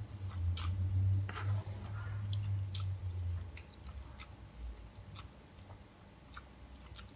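A person eating instant fried noodles close to the microphone: slurping strands in and chewing, with scattered small wet mouth clicks. It is louder in the first half and softer after about four seconds.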